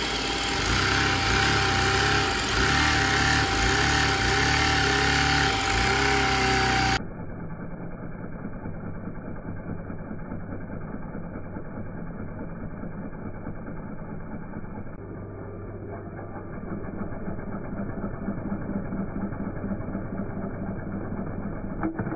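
Vacuum cleaner running with a steady whine while the suction drives a single-cylinder Lego vacuum engine, its piston clattering rapidly. About seven seconds in, the sound cuts to a quieter, muffled rapid clatter of the engine that grows louder a few seconds later.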